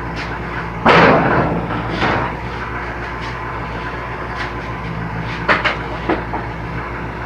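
Homemade table saw powered by a DeWalt 20V cordless motor running steadily, with a burst of blade cutting through wood about a second in and a shorter one soon after. A few sharp knocks come later.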